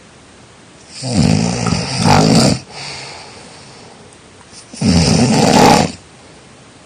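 A person snoring, two snores about four seconds apart: the first about a second and a half long with a brief dip near its end, the second about a second long.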